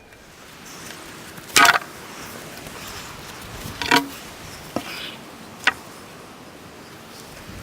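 Building supplies being handled and set down: two clunks, a faint knock, then a short sharp click.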